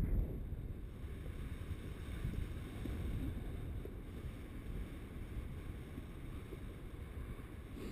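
Wind buffeting the camera microphone of a paraglider in flight, a steady low rumble with no tones.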